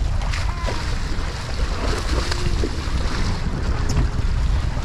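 Wind buffeting the microphone over the steady rush and slosh of sea water beside a moving sailboat.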